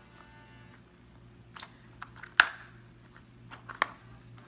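Hands shaping Play-Doh modelling clay, with a few light clicks and taps against a hard surface; the sharpest tap comes about halfway through.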